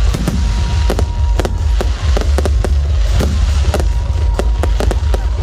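Fireworks exploding: a rapid, irregular series of sharp bangs, several a second, over a constant deep rumble.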